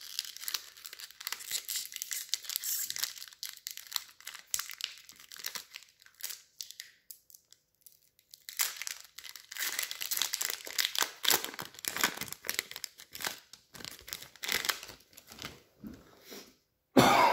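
Booster pack wrapper crinkling and tearing as it is opened, in two stretches with a pause of about two seconds between them, and a brief louder noise right at the end.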